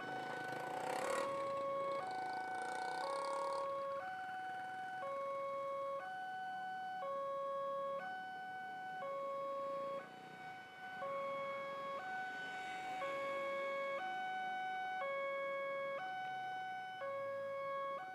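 Railway level-crossing alarm sounding: an electronic two-note signal that switches between a lower and a higher tone about once a second, warning that a train is coming. A passing road vehicle is loud over the first few seconds.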